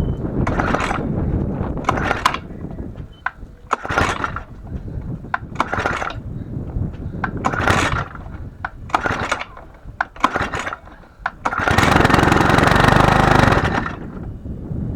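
Lawnmower engine being pull-started: a series of pulls on the recoil starter, then about eleven seconds in the engine catches and runs for about two seconds before dying. It starts but will not keep running, and the cause is unknown to the person repairing it.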